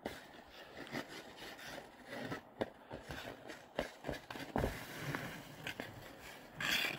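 Ice skate blades scraping and carving on rink ice in uneven strokes, with a few short knocks and a louder, hissing scrape near the end.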